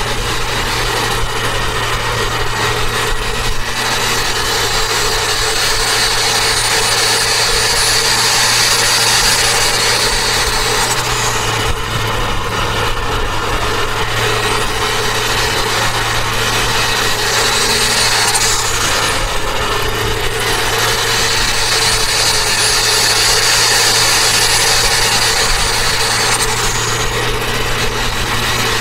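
Turbocharged Toyota Avanza running at road speed, with a steady engine tone and road noise. A high whistle rises and then drops away twice, about six and about twenty-one seconds in, as the sound swells slightly.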